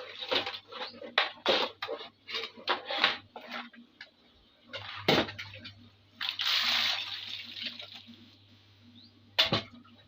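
Eating mud crab: a quick run of sharp cracks and clicks of shell being broken and chewed, then single louder cracks about five seconds in and near the end. A brief water-like hiss, as of pouring or running water, sits between them about six seconds in.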